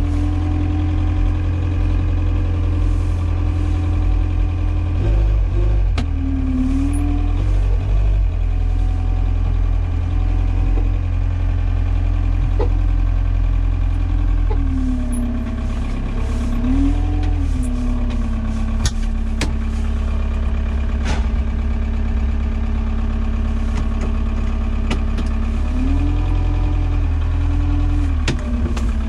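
Forklift engine running steadily, its speed rising and falling a few times as the forklift is driven and the forks worked, with a few sharp knocks from the mast and forks.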